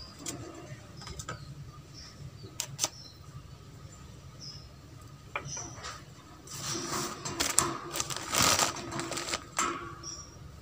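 Holland lop rabbit busy in its wire cage: scattered light clicks, then a few seconds of louder rustling past the middle.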